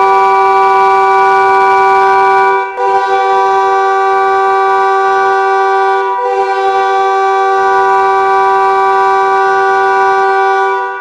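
Hockey arena goal horn: a multi-tone air horn sounding a steady, loud chord in three long blasts, each break between them brief, cutting off just before the end.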